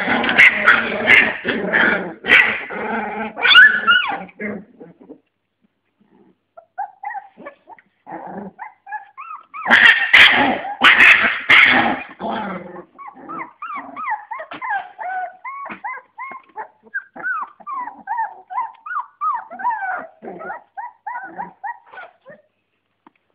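Litter of 25-day-old American Staffordshire terrier puppies growling and yapping as they scuffle, loud at the start and again about ten seconds in. Then a long run of short, high whimpers and yips.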